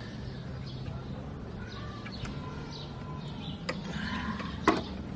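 Two sharp metallic knocks from hand tools at a Daewoo Matiz's alternator mounting, the second louder, near the end, as the alternator is held against the drive belt's tension and its bolt tightened. Birds chirp in the background over a low steady hum.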